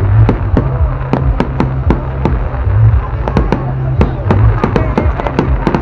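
Public fireworks display: a rapid run of sharp firework bangs, about three or four a second, over a continuous low rumble.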